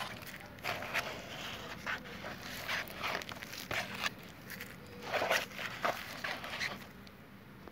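A plastic spreader scraping and smearing two-part body filler, mixed with hardener, across a cardboard mixing board: a run of short, uneven scraping strokes that thin out near the end.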